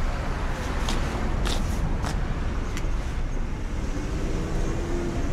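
A car driving, with a steady low rumble of engine and road noise and a few sharp clicks partway through.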